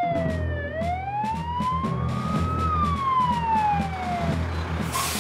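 Dennis fire engine's siren wailing, its pitch sliding slowly down, up and down again before fading out, with a short hiss near the end.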